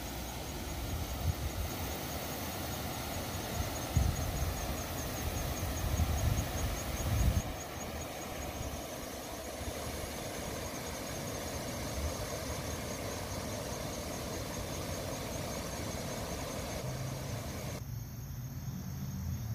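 Steady rush of creek water running high over a low rocky dam, with a few low buffets on the microphone about four to seven seconds in.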